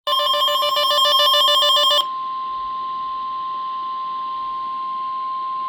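A rapidly warbling electronic alert for about two seconds, then the steady single-pitch 1050 Hz warning alarm tone of a NOAA Weather Radio broadcast, signalling an emergency alert about to be read.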